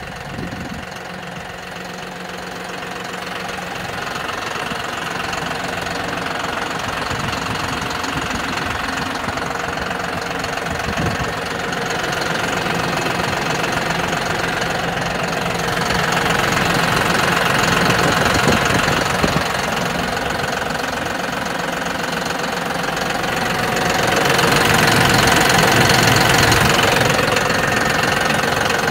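John Deere 5075E tractor's three-cylinder diesel engine idling steadily with a diesel clatter, swelling louder twice, around the middle and near the end.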